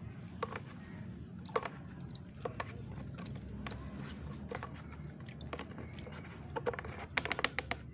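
A small fish net is worked through a bucket of water, giving scattered splashes and drips. A quick run of splashes comes near the end.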